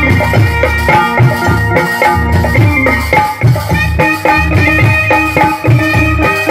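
Instrumental folk-style music: drums and a rattle keep a steady, even beat under a melodic line.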